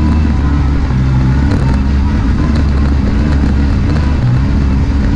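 UTV engine running steadily while the side-by-side drives along the trail, heard from inside the open cab, with faint scattered clicks and rattles.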